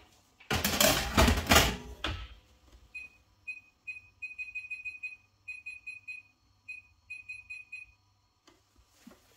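A loud rushing noise for under two seconds near the start, then a run of short, high-pitched electronic beeps for about five seconds. The beeps come singly and in quick runs, in an uneven rhythm.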